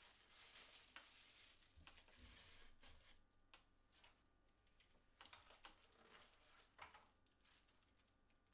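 Faint crinkling and rustling of thin plastic packaging being handled, in uneven bursts, with a few light taps.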